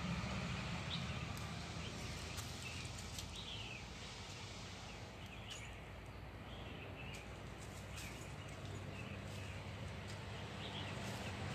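Outdoor ambience: a few short, scattered bird chirps over a low steady hum, with occasional faint clicks and rustles of dry leaves.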